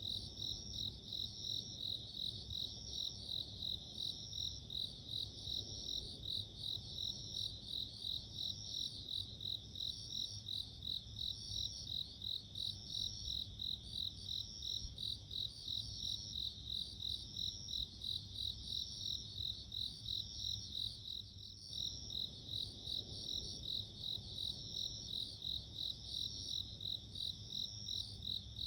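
Bell crickets (suzumushi) singing: a high, ringing chirp repeated at an even, rapid rhythm, over a faint low background rumble.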